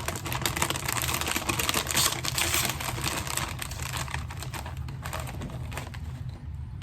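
Crinkling and rustling of a Ruffles potato chip bag being opened and handled, a dense run of fast crackles that fades after about five seconds.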